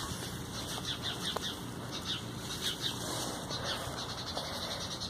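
Small birds chirping: many short, high chirps that come in quick runs.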